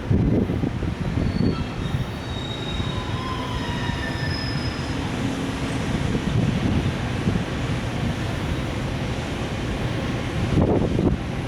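Container freight train pulled by an EF510 electric locomotive moving off, with a steady low rumble of wagons rolling on the rails. Short thin high-pitched wheel squeals come and go over the rumble.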